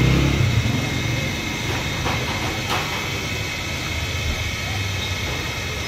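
Busy-street noise: a motor vehicle engine running in the first second, then a steady hiss, into which chicken deep-frying in a karahi of hot oil blends. Two light clicks fall about two seconds in and a little after.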